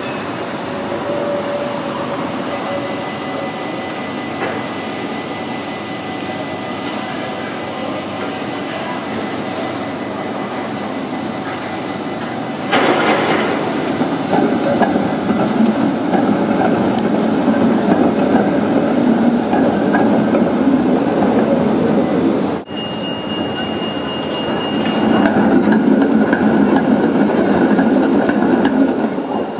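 Trams running on street track: wheels on rails and running gear, louder from about 13 seconds in as a tram draws level and passes close. After a sudden break a second tram passes, with a thin steady high tone over the rumble.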